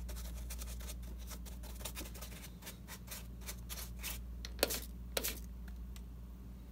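Brush dabbing and scratching on painted foam rock, then two quick squirts of a trigger spray bottle of water, just over halfway through and about half a second apart, over a steady low hum.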